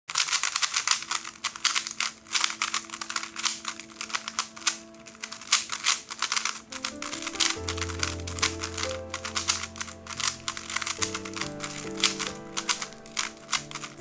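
Rapid, continuous clicking and clacking of a GAN 3x3 speedcube's plastic layers being turned quickly by hand. Background music with held notes plays underneath, and a bass line comes in about seven and a half seconds in.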